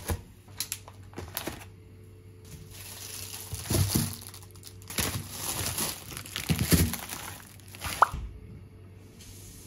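Plastic grocery packaging crinkling and rustling as items are handled and set down on a kitchen counter, with a few light knocks at irregular moments, over a faint steady hum.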